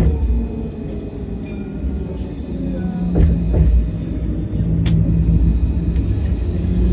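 Tram running, heard from inside the car: a steady low rumble of wheels on the rails with the hum of the electric drive, and a few sharp clicks around the middle.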